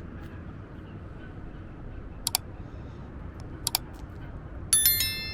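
A sharp metallic ring with several tones at once, starting suddenly near the end and fading, like a small bell, after two pairs of sharp clicks, over a low steady background rumble.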